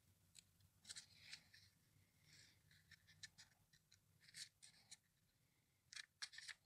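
Faint rustling and light scraping of a hand sliding over a glossy catalog page, a few soft scrapes spread out with several close together near the end.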